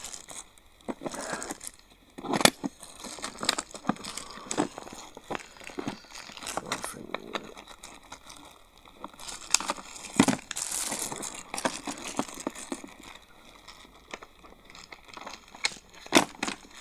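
Handling of plastic-wrapped drill accessories and their carry case: plastic wrap crinkling, with irregular sharp clicks and knocks, the loudest about two and a half seconds in and again about ten seconds in.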